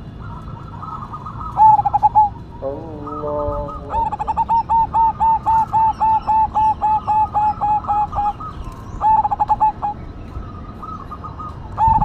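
Zebra dove (perkutut) singing: bursts of rapid, clipped cooing notes, with one long run of about sixteen notes at roughly four a second starting about four seconds in, and shorter bursts before and after. A lower, wavering call sounds briefly just before the long run.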